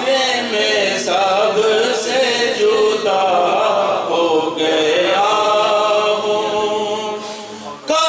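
A man singing a naat unaccompanied into a microphone, in long held, wavering melodic lines. His voice drops away briefly near the end before the next line begins.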